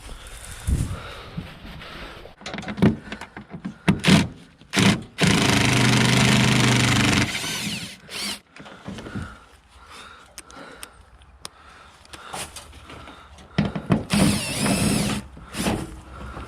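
Power drill running in a steady burst of about two seconds, with a shorter burst near the end, amid scattered clicks and knocks of parts and tools being handled.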